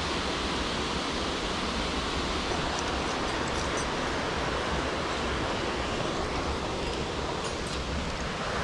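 Steady, even rush of falling water in a mountain gorge stream, with a few faint light clicks about three seconds in and again near the end.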